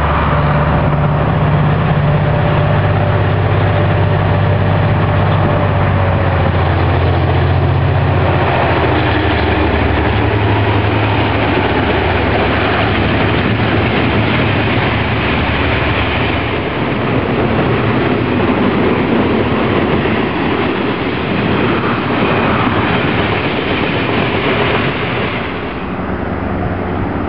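A diesel freight locomotive passes close by, its engine a loud low drone for the first several seconds. Then comes the steady rolling noise of a long train of loaded log wagons running past on the track.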